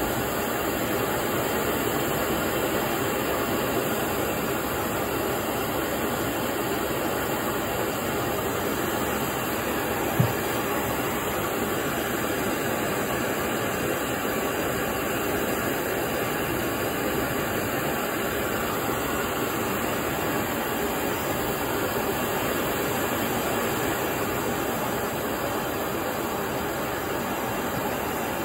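Optimus Polaris liquid-fuel stove burner running at full flame under a Coleman far-infrared heater attachment: a steady, even rushing roar. A single brief click comes about ten seconds in.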